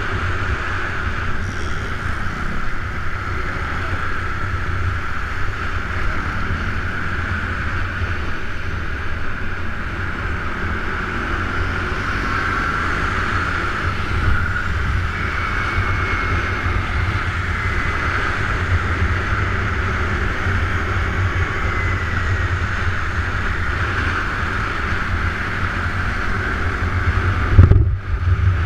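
Scooter engine running steadily at riding speed, its drone nearly buried under heavy wind rumble on the camera's microphone, with a brief jolt in the noise near the end.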